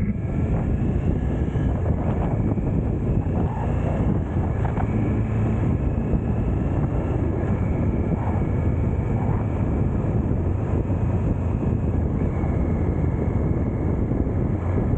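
Triumph Tiger 900 GT's three-cylinder engine running at a steady cruise, mixed with wind rush over the bike-mounted microphone.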